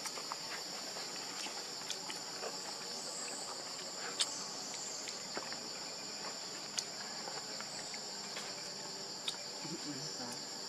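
Steady high-pitched drone of an insect chorus, with a few sharp clicks scattered through it.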